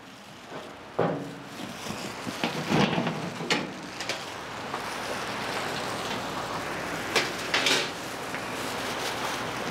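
Metal front door of a Big Chief electric smoker being unlatched and lifted off, with a series of sharp metal clanks and knocks over a steady rushing noise that slowly grows louder.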